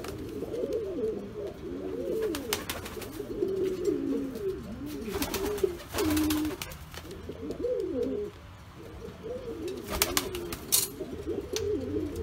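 Pouter pigeons cooing continuously, their low coos swelling and falling one after another. Several brief bursts of wing flapping cut across the cooing, the longest about five seconds in.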